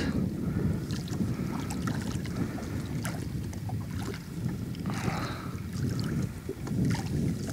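Wind rumbling on the microphone, with light splashing and scattered small clicks as a hooked eel thrashes at the water's surface beside the boat.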